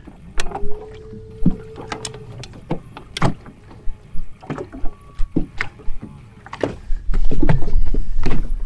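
Small waves slapping against a boat hull in irregular knocks, with a held tone for about two seconds near the start. Wind buffets the microphone in a low rumble over the last second and a half.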